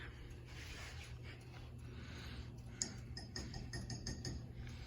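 Hunter Westminster ceiling fan running with a low steady hum and a soft rush of air, with a few light clicks about three seconds in.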